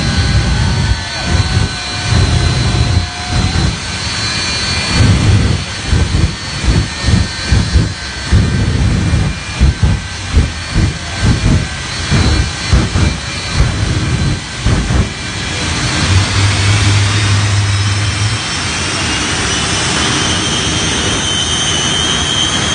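Shockwave jet truck's jet engines running with a high whine while the afterburners are pulsed in a rapid string of loud bursts, a flame show. Near the end the bursts stop and the engines run steadily, their whine rising.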